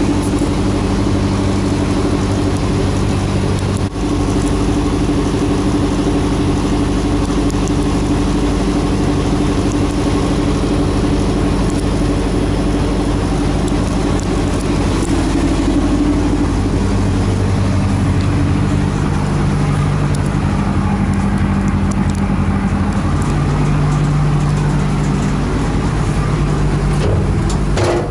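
Moskva-class river tram's diesel engines running steadily under way, a loud low drone with a constant wash of noise over it. The drone's pitch shifts slightly in the second half.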